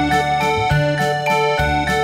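Upbeat background music: a keyboard melody over a bass line with a steady beat.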